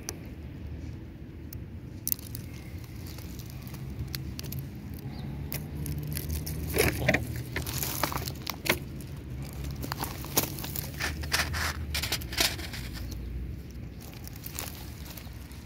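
Loose gravel stones crunching and clicking in an irregular cluster of sharp sounds through the middle, over a low steady rumble.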